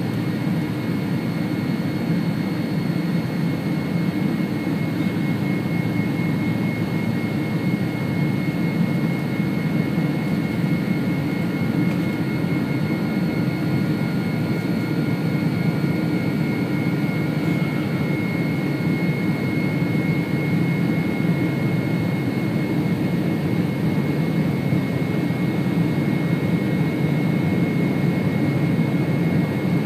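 Steady cabin noise of a Boeing 747-400 in cruise flight, heard from a window seat over the wing: the even low rumble of its Pratt & Whitney PW4000-series turbofans and rushing airflow, with a thin steady whine on top.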